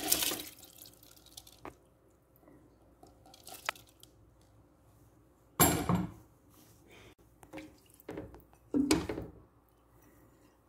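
Rice pouring into a pot of chicken broth: a dense rushing splash that fades within the first half-second. Then mostly quiet, with scattered small clicks and two brief louder splashes or knocks in the pot, about halfway through and near the end.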